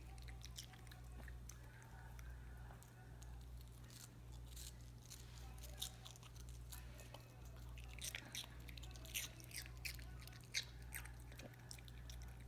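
A Pomeranian chewing and biting into watermelon: a run of soft, crunchy bites, coming thickest in the second half, over a steady low hum.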